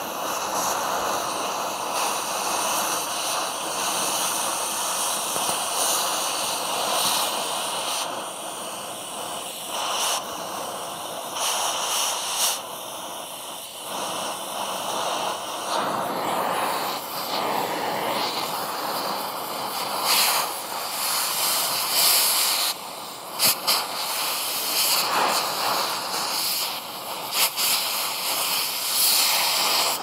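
Oxy-fuel cutting torch hissing steadily as it cuts through the steel mounting of an old semi-truck fifth wheel. In the second half there are sharp crackles and pops as sparks and molten slag blow out of the cut.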